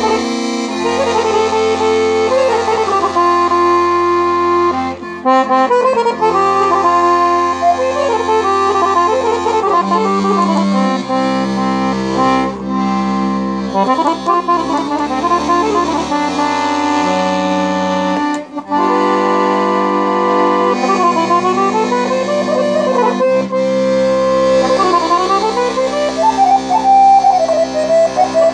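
Piano accordion played solo: a fast melody with quick runs and ornaments on the right-hand keyboard over alternating bass notes and chords from the left-hand buttons, in the style of a Vlach folk tune.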